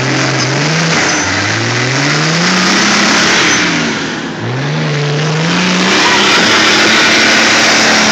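Car engine accelerating hard through the gears: its pitch climbs, drops at each shift and climbs again three times, then holds high near the end.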